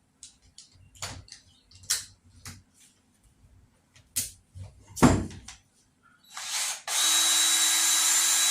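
Tools and wood being handled, with scattered clicks and knocks and a loud knock about five seconds in. About seven seconds in, a cordless drill starts and runs steadily at speed to free a drill bit stuck in hard, dry red oak.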